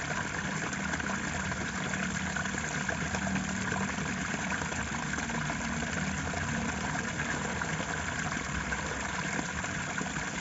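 Steady rush of flowing water, an even unbroken sound with no separate splashes.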